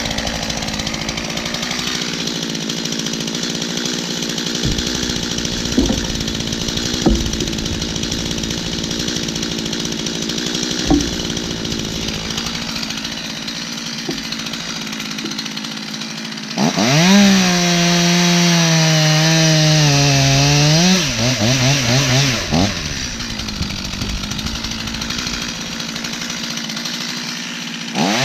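Two-stroke chainsaw running mostly at idle with a few sharp knocks, then opened to full throttle about 16 seconds in for around five seconds of cutting, its pitch sagging lower under load before it drops back to idle. It revs up again at the very end.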